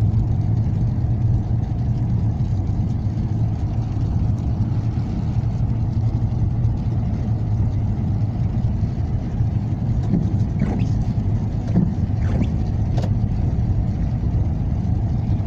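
Toyota FJ Cruiser driving along a dirt road, a steady low hum of engine and tyre noise heard from inside the cabin.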